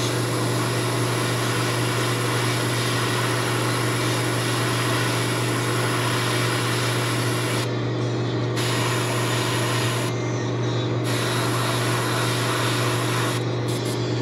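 Airbrush spraying paint in a steady hiss, cut off briefly three times, about 8, 10 and 13½ seconds in, as the trigger is let go. A constant low hum runs underneath.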